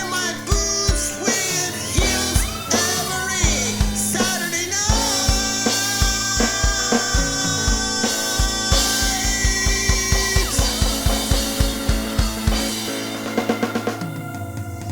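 Pop song with a steady kick-drum beat, drum kit and a sung melody line.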